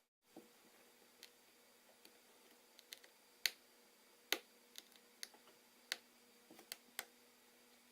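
Small metal tools and screws clicking and tapping against an iPhone 4S's internal parts during disassembly: about a dozen sharp, irregularly spaced clicks over a faint steady hum.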